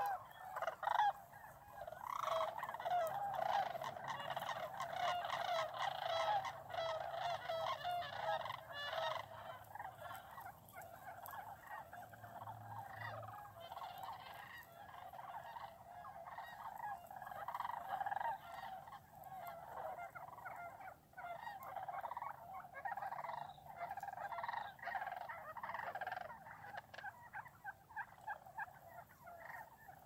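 A chorus of many birds calling at once, wild turkeys and sandhill cranes together, the calls overlapping in a continuous jumble. It is busiest over roughly the first ten seconds and thins somewhat after.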